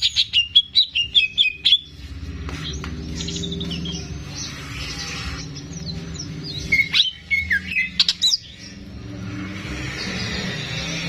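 Greater green leafbird (cucak ijo) singing: a quick run of sharp whistled chirps for about two seconds, then a longer rough, hissy stretch, another few whistled notes around seven seconds in, and a second rough stretch near the end.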